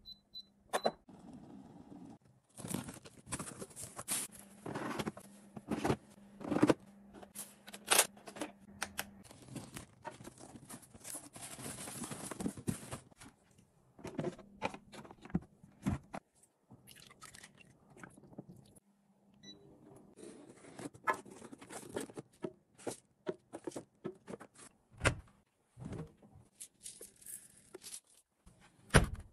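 Handling noises: a run of sharp clicks and knocks with crunching, crinkling rustles, and a faint steady hum underneath at times.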